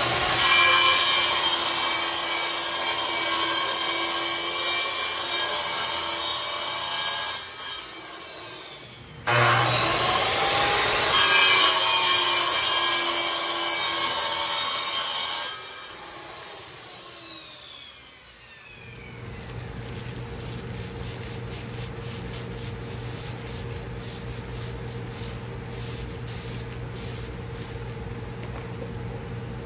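A power tool cutting through acrylic sheet in two loud passes of several seconds each. After the second pass the motor winds down, falling in pitch. A quieter steady hum follows and runs on.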